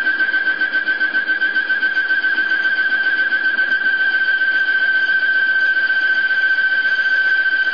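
Carbide slot mill cutting very hard steel on the lathe, fed in slowly by hand, making a steady high-pitched whine that wavers a little at first and then holds even. The cutter is turning a bit fast for the job.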